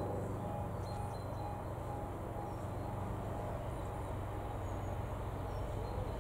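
Steady low rumble of a diesel engine, with a faint beeping tone repeating about twice a second.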